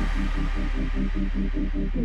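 Electronic outro music with a heavy bass and a fast repeating pulse, about six a second, its high end fading away.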